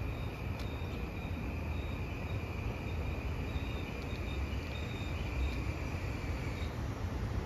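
Kawasaki M8 electric multiple-unit train approaching slowly into the station: a steady low rumble, with a steady high tone that stops near the end and faint insects chirping in short repeated pulses.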